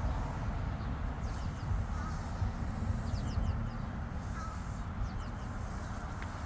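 Birds calling in short falling chirps, in a few clusters, over a steady low rumble.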